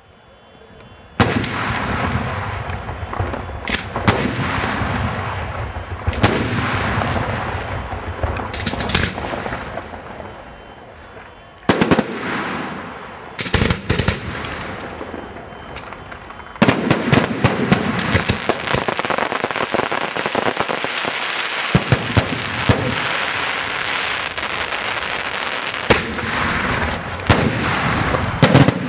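Fireworks display: aerial shells bursting. A sharp bang about a second in trails off into crackling, a handful of separate bursts follow, and past the halfway point the firing becomes a rapid, dense barrage of bangs and crackle.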